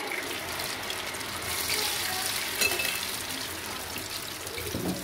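Potato fries deep-frying in hot oil, sizzling and crackling steadily. A single sharp click stands out a little past halfway.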